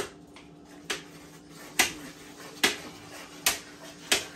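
Regular sharp knocks of kitchen work, a little under one a second, each ringing briefly, over a faint steady hum.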